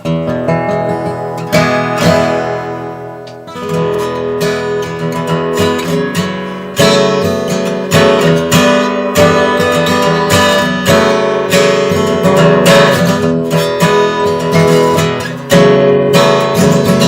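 Gibson Hummingbird acoustic guitar strummed, full chords ringing with frequent strokes. About three seconds in, one chord rings out and fades, then the strumming picks up again.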